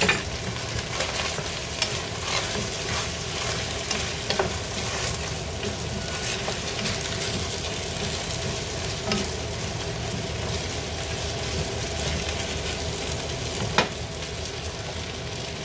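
Food frying and sizzling in a pan on a gas stove while a utensil stirs it, with small scraping ticks over a steady low hum. A sharp click near the end.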